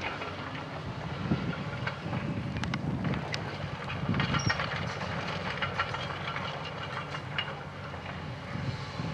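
Hyundai 210LC-9 crawler excavator travelling on its steel tracks: the diesel engine runs steadily under an irregular clatter of track links, with scattered clanks and a few brief squeaks.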